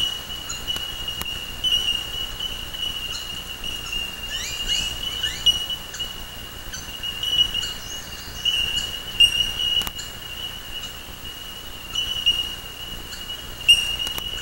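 Birds chirping, with a quick run of four or five falling notes about four to five seconds in, over a steady high-pitched whine and a few sharp clicks.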